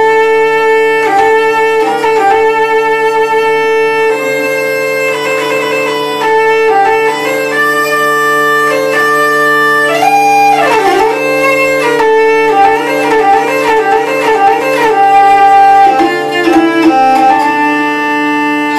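Hurdy-gurdy played with the crank: the wheel sounds a steady bass drone on D beneath a low melody stepped out on the keys. About halfway through the melody makes a quick swoop down and back up, followed by fast ornamented notes.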